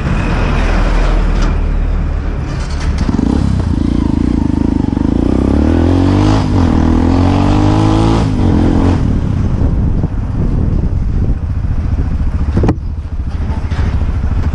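Motorcycle engine heard from the rider's seat while riding, its pitch rising and falling with throttle and gear changes, over steady road noise. A single sharp knock near the end.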